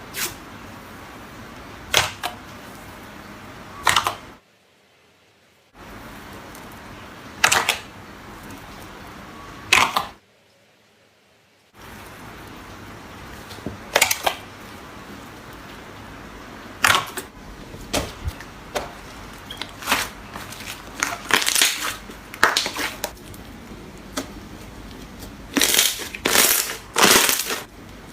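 Slime being pressed and squeezed by hand, giving sharp crackling pops and crunches: single pops at first, then dense crackly runs in the second half. Two short dead-silent gaps break it up.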